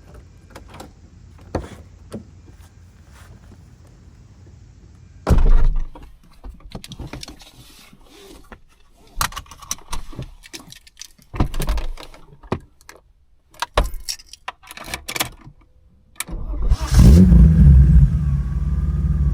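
A heavy thud about five seconds in, then clicks and keys jangling, and about sixteen seconds in the BMW E36 325i's M50B25 straight-six cranks and fires, flaring loud before settling into a loud, uneven idle through its Supersprint race exhaust.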